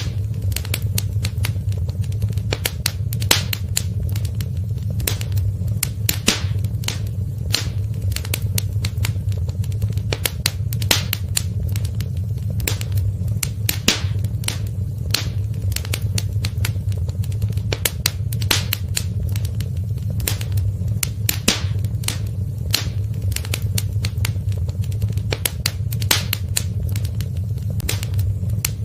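Wood fire in a fireplace crackling: dense, irregular sharp pops and snaps over a steady low rumble of burning.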